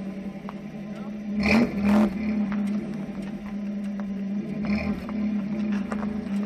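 A 4x4's engine running steadily at low speed, a constant drone, with two loud thumps about a second and a half and two seconds in and a lighter one near the end, as the vehicle jolts over rough ground.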